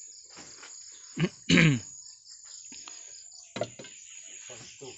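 Crickets chirring steadily in a high, pulsing drone. About a second and a half in, two short loud calls fall in pitch, and fainter clicks and calls follow.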